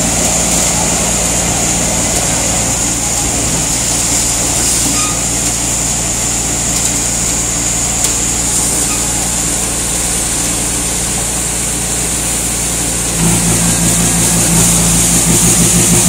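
ABJZ40C diesel concrete mixer pump running steadily, its mixing drum turning and discharging concrete into the pump hopper, with a constant low engine hum and a steady high hiss. About thirteen seconds in the machine gets louder and its low hum stronger.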